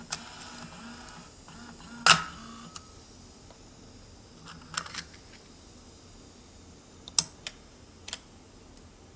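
A handful of sharp clicks and knocks over a low background hum. The loudest comes about two seconds in, with a short ring after it; the others fall near five, seven and eight seconds.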